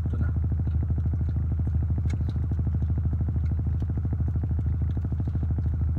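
Car engine idling, a steady low hum with a fast even pulse, heard from inside the cabin.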